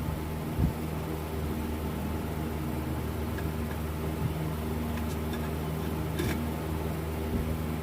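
Steady mechanical hum with several even low tones, like a running motor, with a few faint light clicks and one sharper click about six seconds in.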